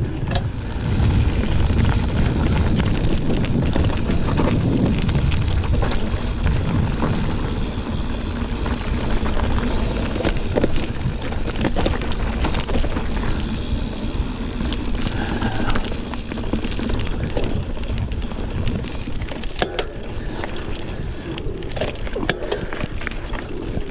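Giant Fathom 29 mountain bike ridden along a dirt trail: steady tyre and wind noise with a low rumble, heavier over the first several seconds, and frequent small clicks and rattles from the bike over the rough ground.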